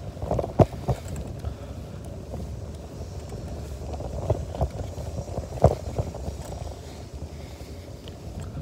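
Wind buffeting a phone's microphone while riding a bicycle, a steady low rumble. A handful of sharp knocks and rattles cut through it, two in the first second and the loudest a little past halfway.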